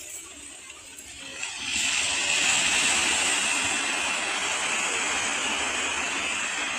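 Sea surf washing onto a rocky shore: a steady rush of breaking waves that swells up about two seconds in.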